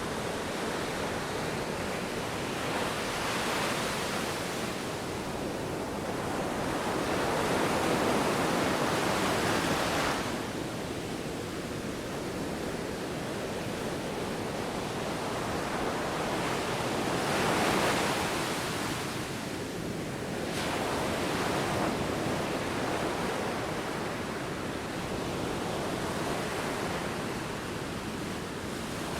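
Ocean waves breaking and washing in, a steady rush of surf that swells in slow surges every several seconds.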